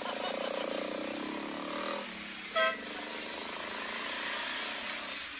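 Small motorcycle engine of a passing sidecar tricycle, a rapid buzz for about two seconds that then fades, over a steady hiss.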